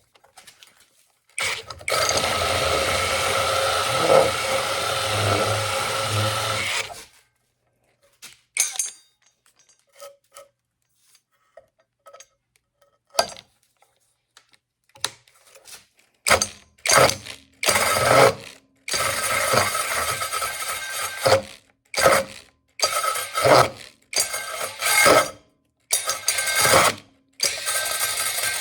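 Mellif 12-volt cordless drill on low speed driving a 5-inch hole saw as it cuts. It runs steadily for about five seconds, goes quiet apart from a few small clicks, then is pulsed on and off in many short bursts with one longer run in the middle.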